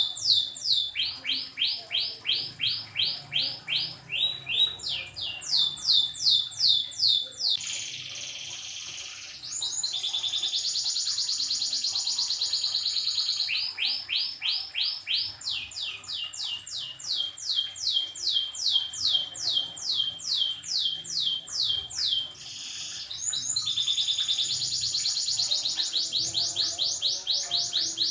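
Orange domestic canary singing continuously. Runs of quickly repeated sweeping notes alternate with long, fast rolls, the longest lasting several seconds.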